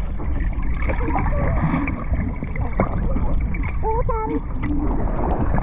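Sea water heard from a camera held under the surface: a steady, muffled churning rumble with bubbling as a swimmer kicks through the water.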